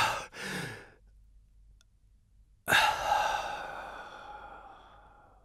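An old man's dying breath: a short breath out just after the start, then, about 2.7 s in, a long exhale that fades away over nearly three seconds, his last breath as he dies.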